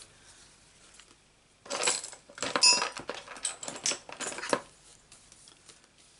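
Cardstock and small paper pieces being handled on a craft mat: a run of short rustles and taps, with a brief metallic clink about two and a half seconds in.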